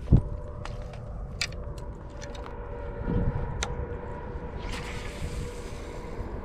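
Handling noise from an angler moving on a rocky bank with a fishing rod: a loud thump just after the start, then scattered clicks and scuffs over a steady faint hum.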